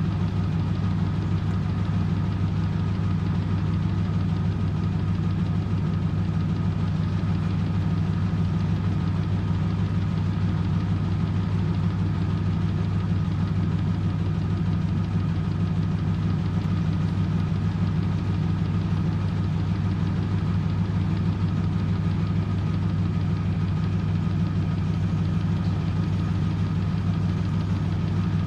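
Italian-built (Antonio Merloni) 1997 M Eurotech EW 450 front-loading washing machine spinning its drum at a constant 400 rpm, a steady low motor hum with a faint high whine that does not change.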